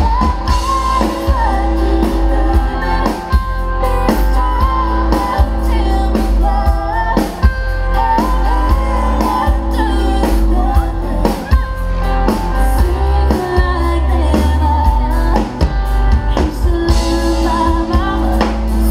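Live band music amplified through a PA: a woman sings the lead over electric guitar and drums, loud and steady.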